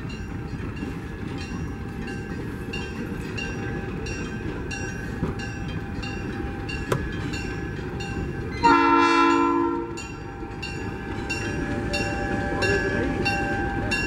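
Diesel-led passenger train, SP 3100, rolling past with a steady rumble, under a high ringing repeated about twice a second. About nine seconds in, one horn blast of about a second is the loudest sound.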